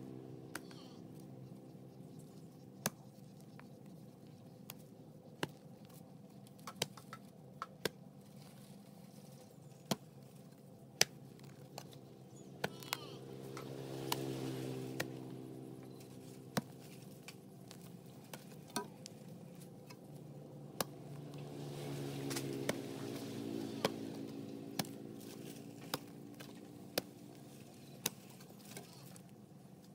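Long-handled hoe chopping into hard, dry soil: sharp single strikes every second or two, at an uneven pace. Under them runs a steady low hum that swells twice, once near the middle and again about two-thirds through.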